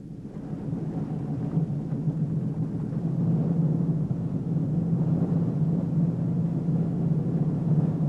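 Dive boat's engine running with a steady low hum, growing louder over the first few seconds and then holding steady.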